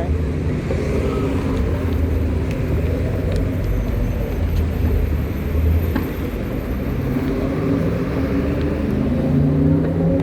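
Street traffic: a motor vehicle's engine running close by with a steady low rumble, its pitch rising near the end as it pulls away.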